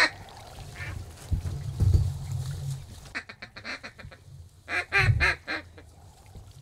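Ducks quacking in quick stuttering runs, the strongest run about five seconds in, with a low rumble on the microphone about two seconds in.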